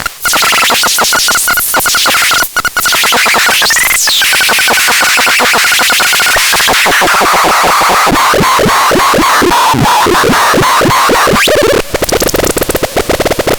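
Electronic sound-effect tones played loud and harsh over a hiss of noise. A high steady tone is chopped into rapid pulses, with a quick rising-and-falling sweep about four seconds in. The pulsing tone then sinks a little lower and turns choppier near the end.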